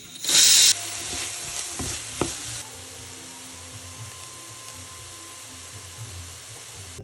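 Food going into hot oil in a cooking pan: a loud burst of sizzling about half a second in, then steady frying sizzle as it is stirred, with a couple of sharp utensil knocks around two seconds in.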